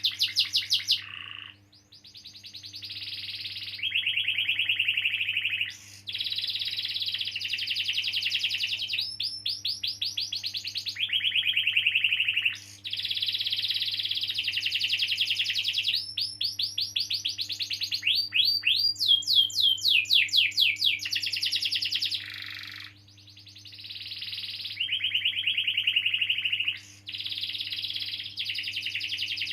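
Domestic canary singing a long, nearly unbroken song of rapid rolling trills and fast repeated chirps, the phrases switching every second or two. There are short breaks about two seconds in and again around 23 seconds.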